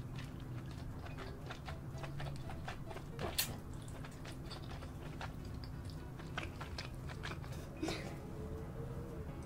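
Close-miked eating sounds of king crab meat dripping with sauce: wet smacking, sucking and chewing clicks, with two louder slurps, one about a third of the way in and one near the end.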